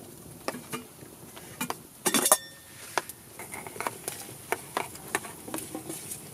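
Cut potato chunks tipped from a metal plate into a stainless steel pot of water, with a series of clinks and knocks of metal on metal. The loudest clatter comes about two seconds in.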